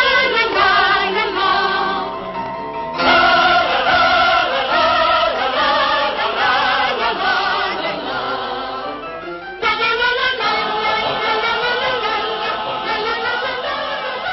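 Music with a choir of voices singing. The singing breaks off and comes back in suddenly about three seconds in and again near ten seconds.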